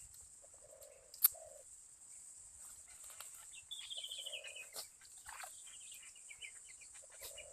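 Faint rural background: a small bird gives a quick descending series of high chirps about four seconds in and another run a little later, with soft low clucking-like calls between. A single sharp click sounds about a second in, over a steady high hiss.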